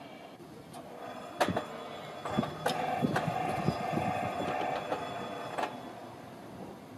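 Arriving freight train heard before it comes into view: a series of sharp clicks and knocks, with a steady squeal from about three seconds in until nearly five seconds.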